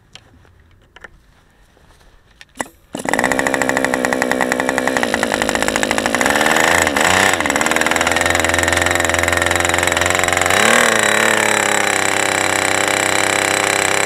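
A few faint clicks, then a model airplane glow engine, running on a genuine OS #8 glow plug, fires about three seconds in and keeps running loud and steady, its pitch wavering briefly twice.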